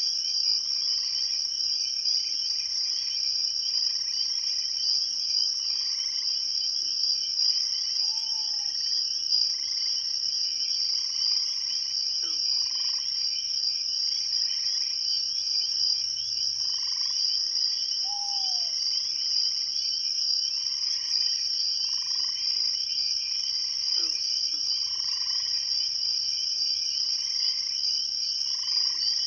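Night chorus of crickets and frogs: a steady high-pitched cricket trill underneath, with frogs calling over and over at a lower pitch, roughly once a second, and short high chirps every few seconds.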